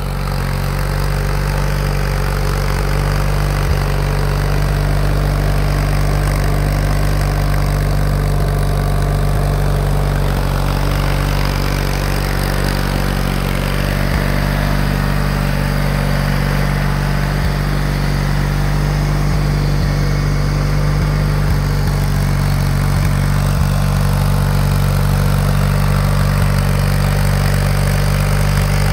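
Simplicity garden tractor's engine idling steadily.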